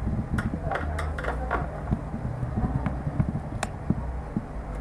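Small irregular clicks and scrapes of a Phillips screwdriver turning the adjustment screw of a concealed kitchen-cabinet hinge, over a low steady rumble. The screw is being loosened a little to reset a door that rubs.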